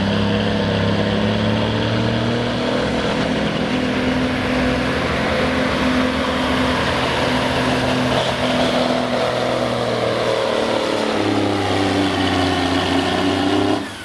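Street semi truck's diesel engine pulling a sled under full load, running at high, steady revs with a faint high whistle above it. The pitch climbs a little near the end before the sound stops abruptly.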